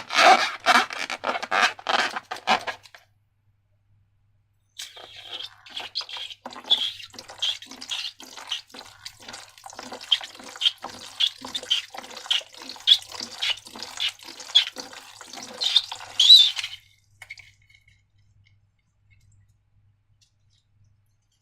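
Slime being worked, giving wet, sticky squelches: a quick run for a couple of seconds, then after a short pause a longer steady run of about two squelches a second that stops a few seconds before the end.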